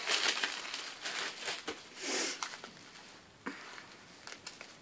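Packaging rustling and crinkling as a small gift bag and paper note are handled, in quick crackly bursts over the first two seconds, with a short soft rush of noise about two seconds in and only light ticks after.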